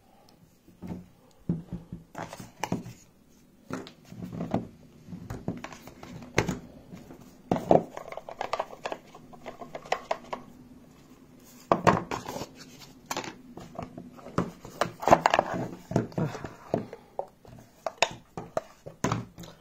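Unboxing handling noise: a small speaker, its cardboard box and paper manual being picked up and moved, with irregular clicks, knocks and rustling.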